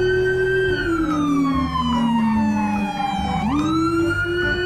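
Police car siren wailing: the pitch holds high, slides slowly down over about three seconds, then sweeps quickly back up and holds.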